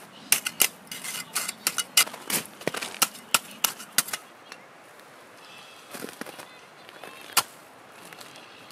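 Small folding shovel scraping and chopping at crusted snow and frozen ground: a quick, irregular run of sharp crunching scrapes for about four seconds, then only a few scattered ones, with a single sharp strike a little before the end.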